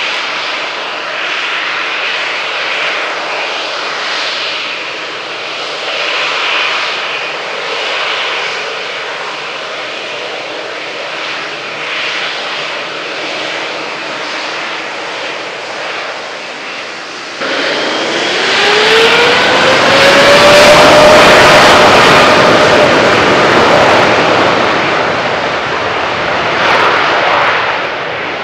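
Boeing 777X's twin GE9X turbofans whining steadily at taxi power. About two-thirds of the way through the sound jumps sharply louder, and a rising tone shows the engines spooling up toward takeoff thrust.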